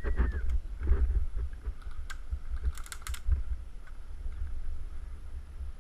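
A few sharp clicks over a steady low rumble of wind and handling noise on the microphone, with a quick cluster of clicks about three seconds in.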